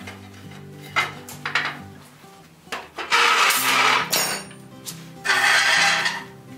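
Background music under knocks and clatter of wooden wagon parts being handled, with two loud scraping noises of about a second each, about three and five seconds in.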